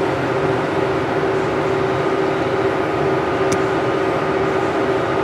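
Steady mechanical drone with a constant low hum, like a room's ventilation unit running, with one faint click about three and a half seconds in.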